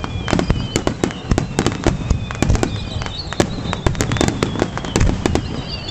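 Fireworks display: a rapid, dense run of bangs and crackling pops, with high whistles slowly falling in pitch over them.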